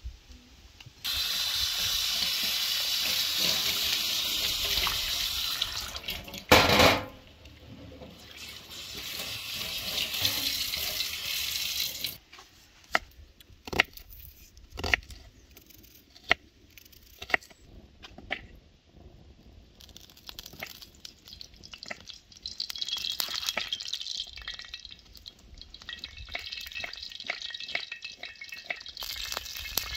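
A steady rush like running water with a loud knock about seven seconds in, then a knife cutting an onion on a wooden board in sharp, irregular chops, then the crackling of a wood fire under a steel saj pan as oil is poured in.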